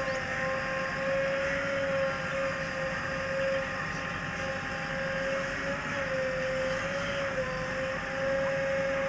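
JCB 3DX backhoe loader's diesel engine running steadily under working load as the backhoe arm shifts soil, with a steady whine that wavers slightly in pitch.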